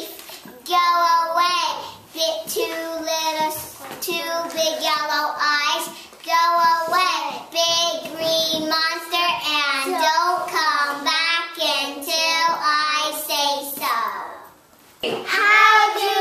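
Young children singing a song unaccompanied, in phrases with short breaks between them. The singing stops about fourteen seconds in, and a child's voice starts again near the end.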